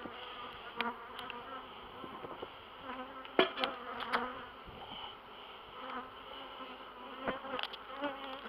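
Honey bee colony buzzing, a steady hum whose pitch wavers, with a few sharp clicks of handling.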